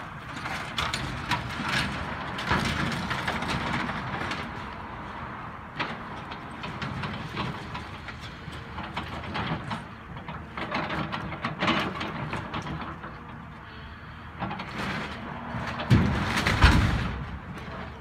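Cat tracked excavator demolishing a house: its diesel engine runs steadily under repeated cracking, splintering and clattering of the walls and roof being torn apart, with a heavy crash of falling debris near the end.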